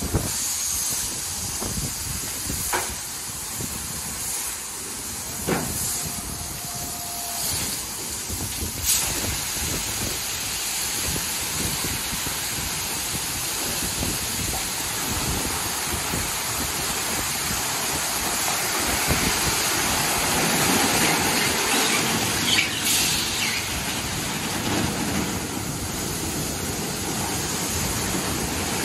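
Ryko Select-A-Wash rollover car wash running: high-pressure water jets make a steady spraying hiss while its red cloth brushes spin against a pickup truck. A few sharp knocks come in the first several seconds, and the spray grows louder in the second half.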